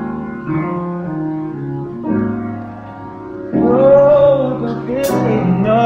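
Background music with sustained chords, getting louder about three and a half seconds in.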